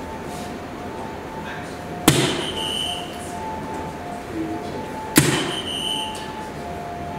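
Two soft-tip darts hit an electronic DARTSLIVE 3 dartboard, one about two seconds in and one about five seconds in. Each sharp hit is followed by the machine's short electronic award sound for a triple 20, over the machine's faint looping tune.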